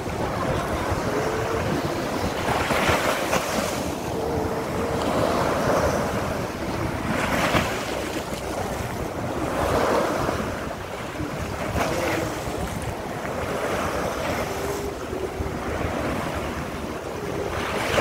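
Small sea waves breaking and washing up a sand beach, the surf swelling into a louder rush every few seconds, with wind rumbling on the microphone.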